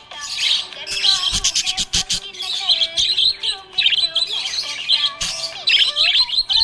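Budgerigars chirping and chattering: many rapid, overlapping high chirps and warbles with no break.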